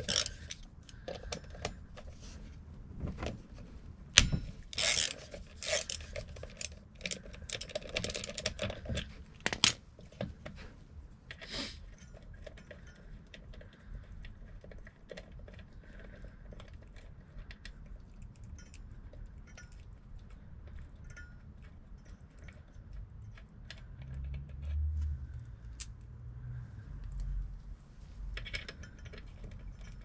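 Metal hand tools and fasteners clinking and knocking, with a sharp knock about four seconds in and a few louder clanks up to about twelve seconds, then lighter scattered clicks and a short low hum late on.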